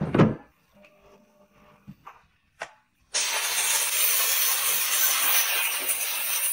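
A plastic water tank knocked into place in a Kärcher steam cleaner with a thud, then a few light clicks. About three seconds in, the handheld steam nozzle starts jetting high-pressure steam with a loud, steady hiss.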